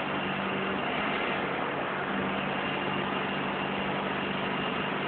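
Forklift running steadily with a constant low hum and a faint high whine over a hiss of machine noise, its hydraulics working the attached paper roll clamp.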